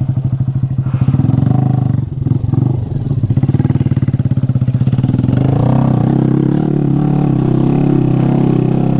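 Honda Grom's 125 cc single-cylinder engine running hard under load on a hill climb. Its revs waver and dip a couple of times early on, then hold steady.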